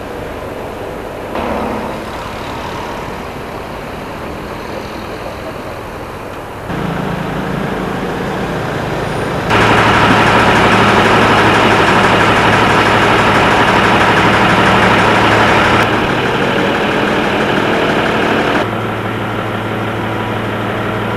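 Mercedes-Benz fire engine's diesel engine idling close by, a steady run with a low hum. The sound jumps abruptly in level several times and is loudest in the middle.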